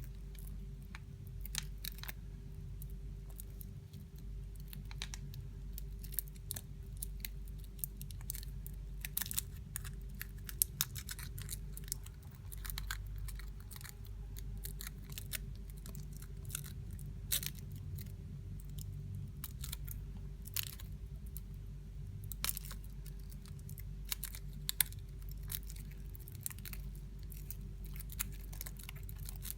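Foil wrapper of a Kinder Surprise chocolate egg crinkling and crackling in irregular sharp bursts as it is unwrapped by hand, over a steady low hum.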